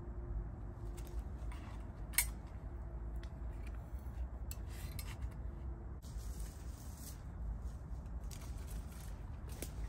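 Light clicks of wood on metal and one sharp clink about two seconds in as a split piece of firewood is set on top of a folding steel bushbox stove, over a steady low rumble.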